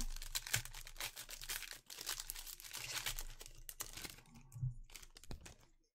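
Foil wrapper of a Panini Select trading-card pack being torn open and crinkled in the hands: a dense run of crackles that thins out to a few sharp clicks near the end.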